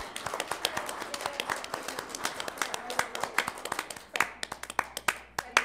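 A small audience clapping in applause, dense at first and thinning out to scattered claps near the end.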